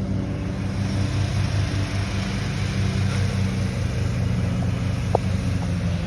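Lawn mower engine running steadily at an even speed, with a short high squeak about five seconds in.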